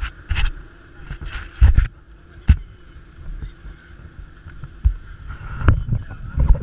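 Handling noise from an action camera being moved about and set down: irregular knocks, bumps and rustling against the microphone, loudest a little under two seconds in and again at about two and a half seconds.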